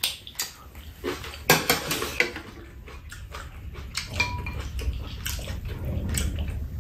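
Spoons and chopsticks clinking and scraping against bowls and a metal serving tray during a meal, in sharp clicks spread through the first half. A low, steady rumble builds in the second half.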